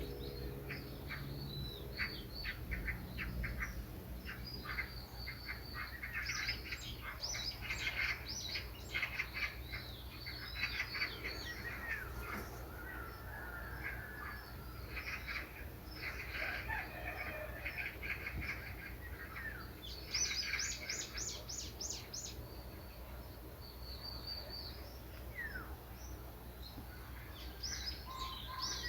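Songbirds chirping and singing, many short high calls overlapping, with a fast run of high notes about twenty seconds in. A low steady hum lies underneath.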